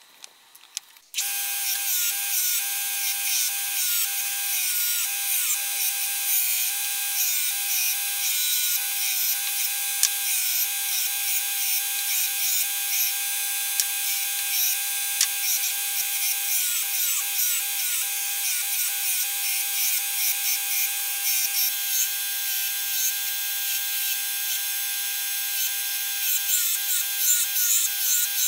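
Ryobi bench grinder with a belt-sanding arm running, a plum-wood hatchet handle held against the belt. It starts abruptly about a second in as a steady motor whine with sanding hiss, and the whine dips in pitch over and over as the wood is pressed on and eased off.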